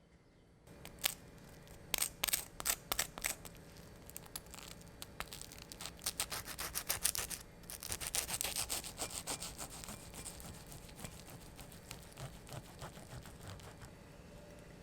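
Knife sawing through crisp toasted bread, a run of crunchy scrapes and crackles that is densest through the middle and thins out near the end.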